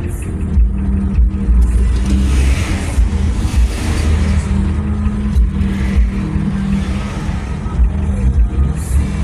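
Steady engine hum and tyre rumble heard from inside a car driving in highway traffic, with a deep low rumble throughout.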